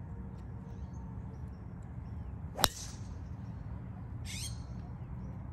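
A golf driver striking a ball off the tee: one sharp crack a little over two and a half seconds in, over a steady low outdoor background.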